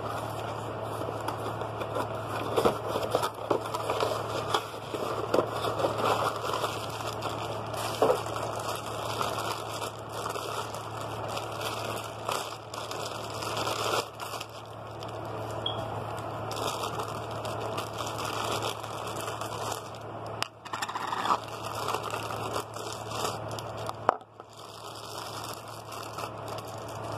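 Clear plastic wrapping crinkling and crackling as it is handled and pulled off a small collectible figure, with scattered sharper clicks and a steady low hum underneath.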